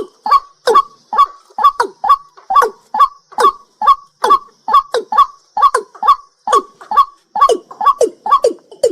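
A night bird calling in a fast, even series of short notes, about two and a half a second, each note dropping in pitch.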